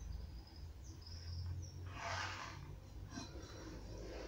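Faint short scratch of a pencil drawn along a square, marking a line across a hardwood stair tread, about two seconds in, over a low steady hum and a few faint high chirps.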